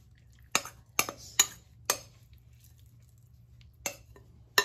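Metal spoon clinking against a glass mixing bowl as grated cassava is scraped out: six sharp clinks, four in the first two seconds and two more near the end.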